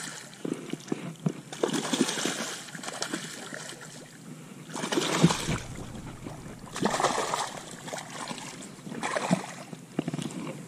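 Shallow water splashing and sloshing in irregular bursts a second or two apart, the loudest about halfway through.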